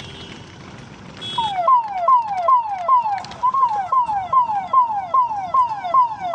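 Electronic siren-type alarm: a falling tone repeated about two and a half times a second, starting about a second and a half in after a short high beep.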